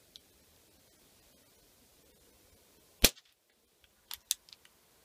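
Crosman E9A .22 CO2 pistol firing one sharp shot about three seconds in, followed about a second later by a few light clicks.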